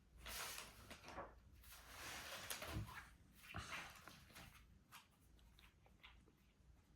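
Faint rustling and soft handling noises with a few light knocks during the first few seconds, then near silence.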